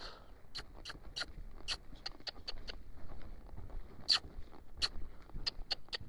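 Walking-horse mare moving at a gait over sand arena footing under a rider: soft, uneven hoof thuds with irregular sharp clicks, two or three a second.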